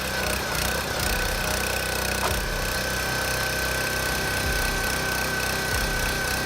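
Engine-driven hydraulic log splitter running steadily, with a steady high whine over the engine noise.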